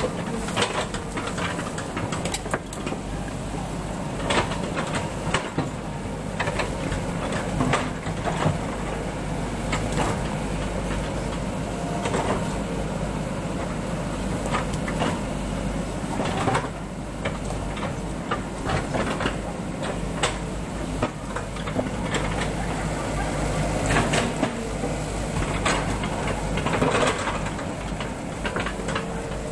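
Crawler excavator's diesel engine running steadily under load while the steel bucket digs and scrapes through soil and rocks, with frequent irregular clanks and knocks of rock against steel.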